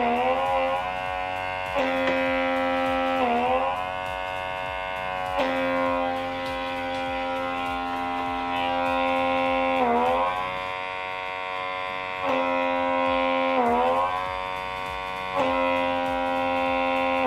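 Small electric vacuum pump of a handheld blackhead suction tool buzzing steadily as it is worked over the face. Its pitch shifts back and forth every second or few seconds, dipping briefly at each change, as the nozzle's suction takes hold on the skin and lets go.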